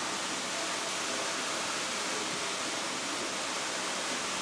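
Steady rush of floodwater.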